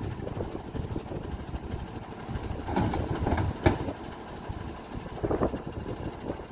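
Freightliner M2 rear-loader garbage truck's diesel engine idling steadily, with a few short clatters and one sharp knock a little past halfway.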